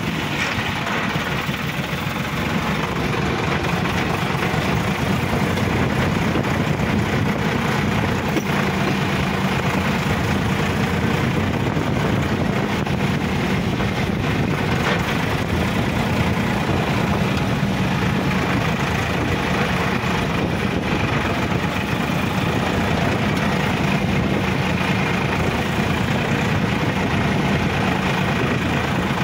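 Sonalika DI-50 RX tractor's diesel engine running steadily under way, heard from the driver's seat.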